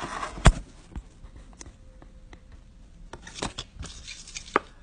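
Handling noise of a phone held close to its microphone: irregular taps and knocks, the loudest about half a second in and a cluster of quicker ones past the middle.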